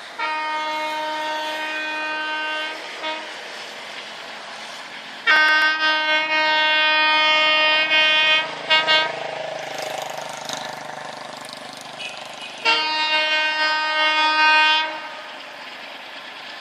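Train horn sounding three long single-note blasts of two to three seconds each, the second ending in a few short toots, over the steady noise of a running train.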